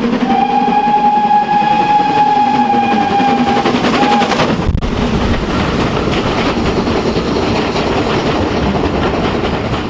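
Steam locomotive whistle blowing one long steady note for about four seconds. After a sudden break, a steam train passes with a loud, steady rush.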